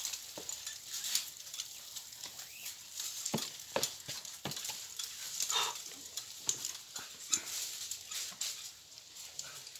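Irregular scuffs and taps of a climber's hands and shoes on rock, with no steady rhythm.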